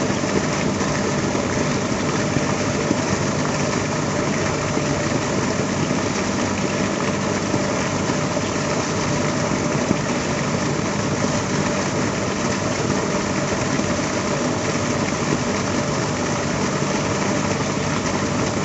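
A steady engine-like hum running unchanged under a constant hiss.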